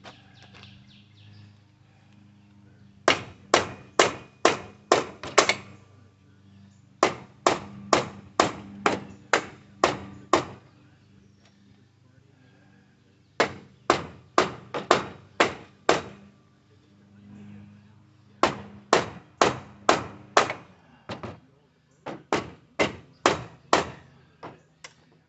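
Hammer blows in quick runs of six to eight strikes, a little under three a second, with short pauses between runs: the mobility scooter's electric drive motor being beaten apart.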